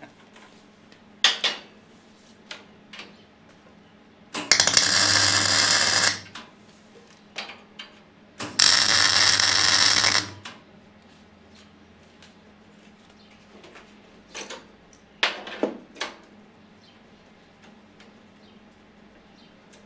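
Two short MIG welds on the steel plates of a welding-table kit, each a steady crackling arc lasting about a second and a half to two seconds. Scattered sharp metal clicks and taps come between and after them.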